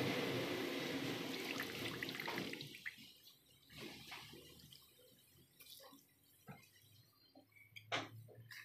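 Water dripping and splashing from grated raw potato squeezed by hand into a clay bowl, as scattered small drips. A steady rushing noise fades out over the first two and a half seconds.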